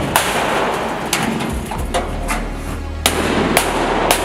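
Hammer striking sheet-metal tin work: about seven sharp blows at uneven spacing. Music plays underneath.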